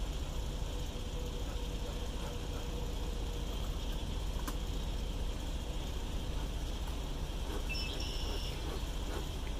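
Steady outdoor background of a low rumble and a high insect hiss around an open beehive, with a click about four and a half seconds in as the bee smoker is picked up. Near eight seconds the smoker's bellows are squeezed over the frames, giving a short squeak.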